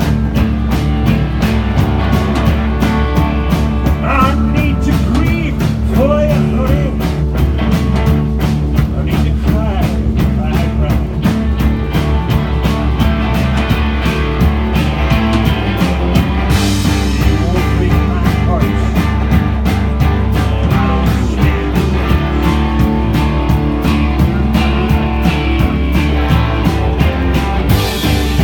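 Rock band playing live: electric bass and guitar over a steady drum beat, with a singing voice early on. Cymbal crashes come partway through and again near the end.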